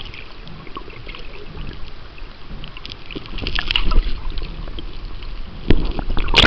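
River water rushing and gurgling against an underwater camera on a gravel riverbed, with scattered clicks and knocks that grow busier after about three seconds. A sharp knock comes about five and a half seconds in and a louder one at the end as the camera is moved.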